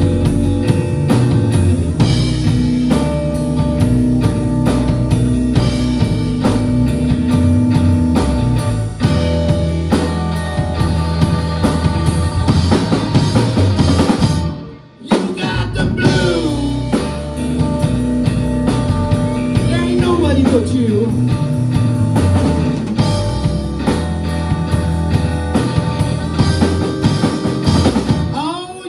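Live blues-rock band playing: electric guitar, electric bass and a drum kit. The band cuts out for a brief moment about halfway through, then comes straight back in.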